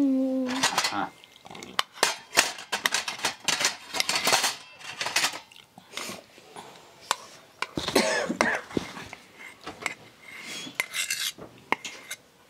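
Cutlery clinking and scraping against plates as cake slices are served: many light, irregular clicks.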